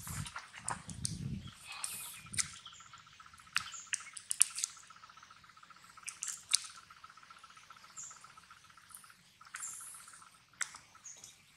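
Insects trilling steadily on one pulsing high note, with sharp irregular clicks and crunches from a macaque biting into and chewing a green fruit.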